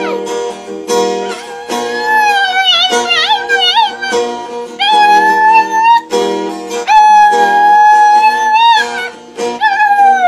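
Dog howling along to a strummed acoustic guitar: several howls, some wavering in pitch and two held steady for one to two seconds each, over repeated strummed chords.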